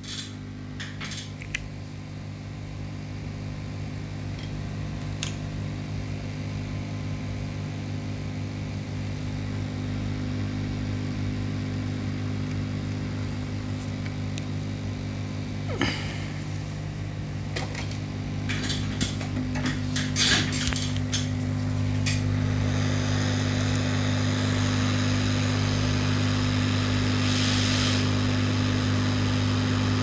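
Hot air rework station blowing on a laptop motherboard to desolder the charging IC, its blower humming steadily, with scattered light clicks. The hum grows louder over the first several seconds, and a higher hiss joins about two-thirds of the way in.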